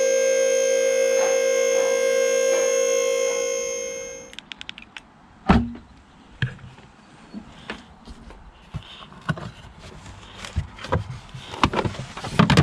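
Steady electric whine of the car lift's hydraulic pump motor, holding one pitch and fading out a little over four seconds in. Then a loud thump, followed by scattered clicks and knocks as the charging cable is handled in the car's trunk.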